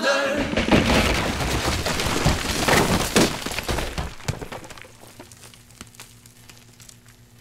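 A concrete floor cracking and breaking apart, a dense crackle of breaking and falling debris that is loud at first and fades away over the second half.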